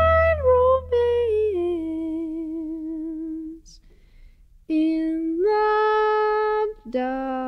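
Music: a woman's wordless vocal, humming long notes with vibrato that step down in pitch. A short pause comes about three and a half seconds in, and then the held notes resume a little higher.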